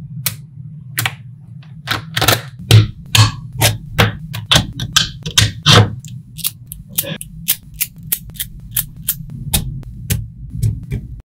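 Small magnetic balls clicking and snapping together as hands pull apart and press clusters into place: sharp clicks that come irregularly, about two or three a second, over a low steady hum.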